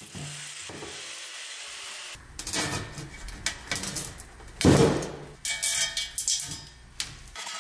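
A freshly cut 3-inch stainless steel exhaust pipe is handled on a wooden workbench. Irregular knocks and scrapes of the metal pipe sound against the bench, the loudest clunk about five seconds in.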